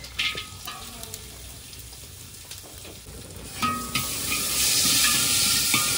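Chopped ginger, garlic and cashew pieces sizzling in hot oil in a handi, with a light crackle. About three and a half seconds in the sizzling suddenly grows much louder and stays loud.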